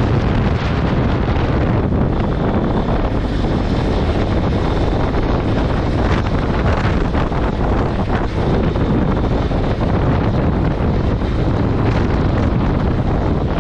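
Steady wind noise buffeting the microphone of a camera on a BMW F700GS motorcycle moving at road speed, with the bike's running sound mixed in underneath.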